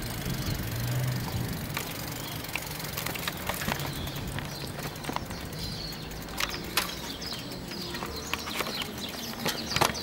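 Bicycle rolling over a tiled pavement, rattling with irregular clicks and knocks as it crosses the tile joints and kerb, over a low steady hum.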